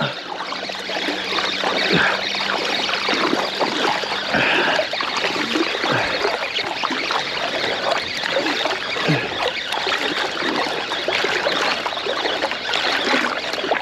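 Sea water lapping and splashing close against a float tube while a spinning reel is wound in on a hooked fish.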